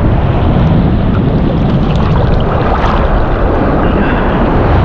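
Steady, loud rumble of wind buffeting the microphone, mixed with rough surf washing around the wader.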